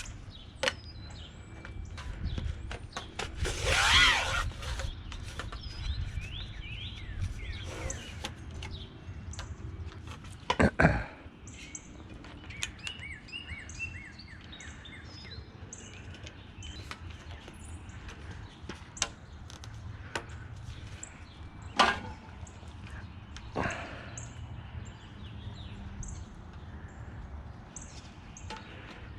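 Birds chirping over a steady low background rumble, broken by a few sharp knocks and clatters from the pole sections and clamps being handled, the loudest about four seconds in and another near eleven seconds.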